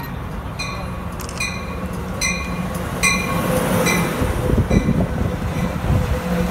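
Amtrak Pacific Surfliner bilevel passenger train pulling into a station, cab car leading, its bell ringing a little more than once a second. The rumble of the cars rolling past grows louder about three seconds in, over a faint steady wheel or brake squeal.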